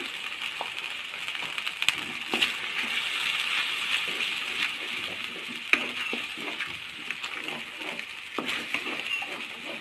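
Onion-tomato masala paste sizzling in hot oil in a kadai while a wooden spatula stirs and scrapes it, with scattered light knocks of the spatula against the pan.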